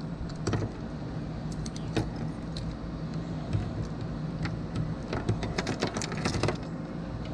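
Keys jangling and clicking as a key works the lock on a plastic truck-bed toolbox's lid latch, in a run of small irregular clicks. A steady low hum runs underneath.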